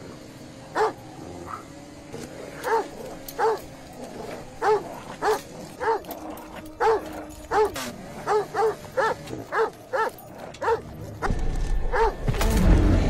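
Pit bull-type dog barking in a string of short sharp barks, about a second apart at first and quickening to around three a second past the middle. Near the end a loud low rumbling noise comes in over the barking.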